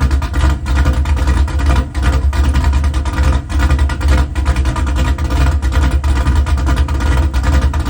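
6.0 L LQ4 V8 with a CamMotion Junkyard Dog cam idling with a choppy, lopey beat that dips about once a second. It breathes through long-tube headers, a 3-inch X-pipe and dual 10-inch BlackWidow Widowmakers.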